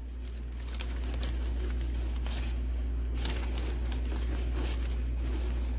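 Cotton rag rubbing over a carved wooden box as excess wood finish is wiped off, with light rustling and crinkling of the cloth and paper underneath. A steady low hum runs underneath.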